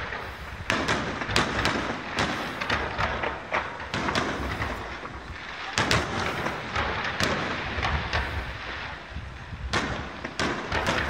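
Aerial firework shells bursting in a quick, irregular string of bangs, about two a second.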